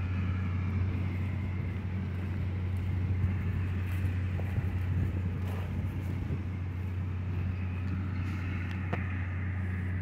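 International 756 tractor's engine running steadily in the distance, working while it cuts oats.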